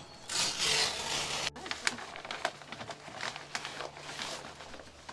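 Rustling and handling noise with scattered light clicks and knocks, over a faint low hum. The sound drops out completely for an instant about a second and a half in.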